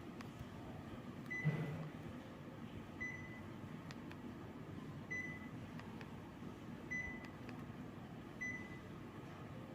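Panasonic CS-YN9TKJ mini-split air conditioner running with a steady fan hiss. A short high beep repeats about every one and a half to two seconds, five times. A low thump comes about a second and a half in.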